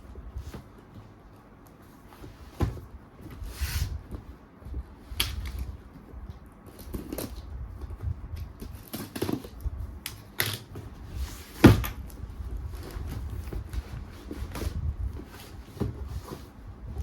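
Cardboard box being opened and its contents handled: irregular knocks, clicks and rustling scrapes, with one sharper knock about two-thirds of the way through.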